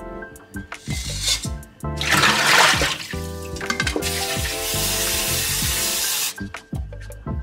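Kitchen tap running onto tomatoes being rinsed in the hand and in a stainless steel bowl, water splashing, in two spells that stop a second or so before the end. Background music plays throughout.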